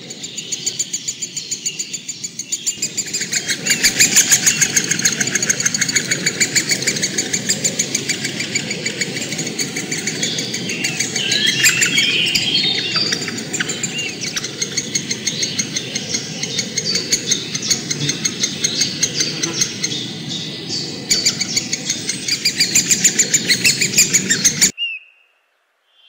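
Woodpecker nestlings begging from inside a tree cavity: a rapid, unbroken series of high, rasping calls, several a second, swelling into louder, more varied calls around the middle. The calling cuts off abruptly near the end.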